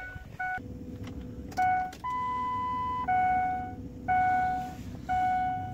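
A Ford Super Duty's dashboard warning chime dinging about once a second, with the key on and the engine not yet running, while the 6.0 Powerstroke diesel's glow plugs heat before a cold start. One longer, higher chime sounds about two seconds in.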